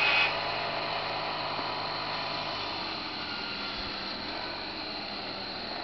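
Engine of a John Deere 116 racing lawn tractor, a 16-horsepower opposed twin, running as the tractor moves away. Its sound drops off sharply just after the start, then fades steadily.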